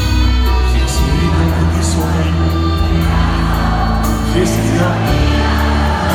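Live band with guitars, keyboards and drums playing a pop song while a male singer sings into a microphone, heard over the concert sound system from within the audience.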